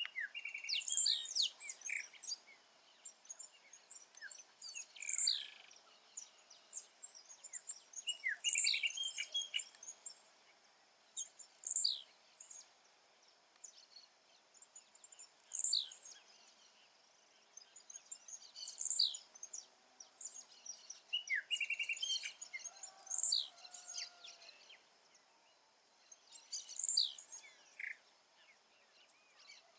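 Blue-black grassquit (tiziu) singing a short, high song phrase, repeated about every three to four seconds, with fainter calls of other birds between the phrases.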